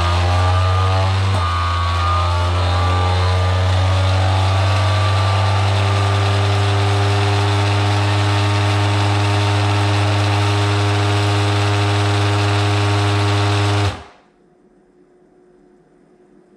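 FoodSaver vacuum sealer's pump running steadily, pulling the air out of a bag around a piece of chicken until the bag is drawn tight. The pump hum cuts off suddenly about fourteen seconds in.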